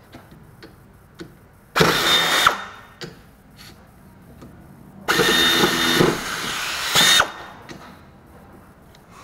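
A small power tool run in two bursts, a short one about two seconds in and a longer one of about two seconds a few seconds later.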